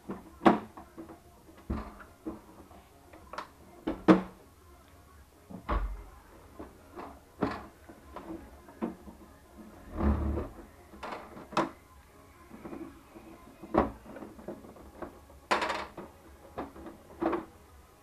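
Plastic housing panels of a Jura E8 coffee machine being pried loose with a screwdriver and lifted off: irregular clicks, snaps and knocks of plastic, with a few duller thumps.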